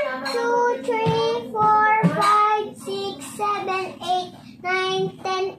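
A young girl counting aloud in a sing-song voice, about a dozen evenly paced held notes, one per number.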